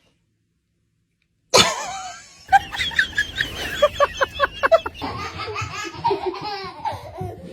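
Silence, then a sudden loud sound about a second and a half in, followed by a person laughing in quick rhythmic bursts and more voice-like sounds.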